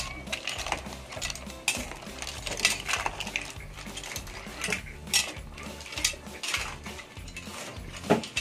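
A spoon stirring mussels in their shells in a metal pot of broth: irregular clinks and clacks of shell against shell, spoon and pot, with a sharper clack near the end.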